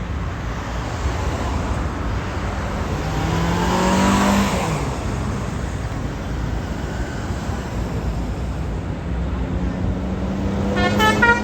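Steady road traffic noise; about four seconds in a vehicle passes close by, its engine pitch rising and then dropping as it goes. Near the end a tour bus's musical multi-tone telolet horn starts to sound.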